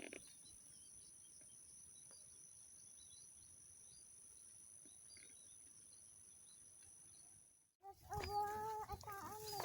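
Faint outdoor ambience: a steady high-pitched insect drone with a few faint bird chirps. It cuts off suddenly near the end, and music with a melody comes in.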